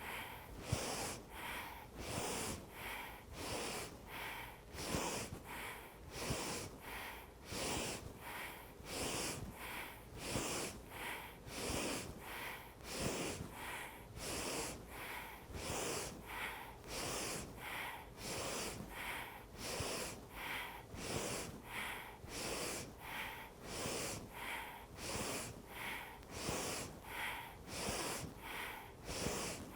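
A woman breathing hard in and out in a quick, even rhythm of about three breaths every two seconds, pacing a yoga 'yogi march' with an inhale as each knee lifts and an exhale as it comes down.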